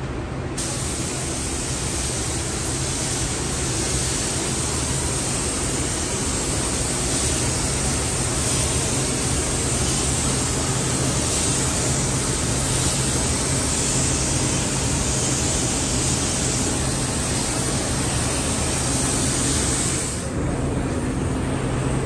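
Gravity-feed paint spray gun hissing steadily as it sprays clear coat. It starts about half a second in and cuts off a couple of seconds before the end.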